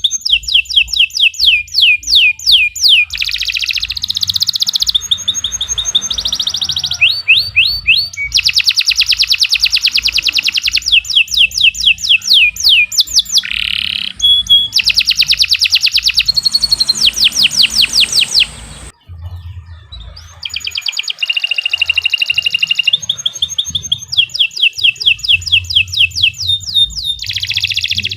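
Domestic canary singing a long, continuous song of fast trills and rapidly repeated high notes, changing from one trill to the next every second or two, with a short break about two-thirds of the way through.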